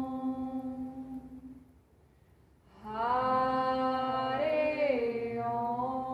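Mantra chanting: a long held vocal note fades away, a short pause follows about two seconds in, then a new held note begins, its pitch bending up and back down before it settles.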